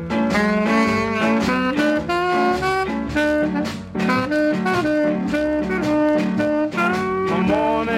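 Recorded music: an instrumental break led by horns playing a melody over bass and a steady beat.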